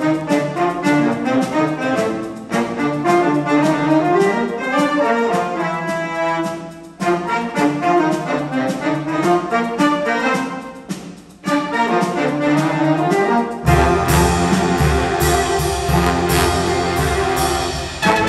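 Jazz big band playing: the saxophone and brass sections play phrased ensemble lines with short breaks between them, then the whole band comes in fuller and louder, with a heavier bass, about three-quarters of the way through.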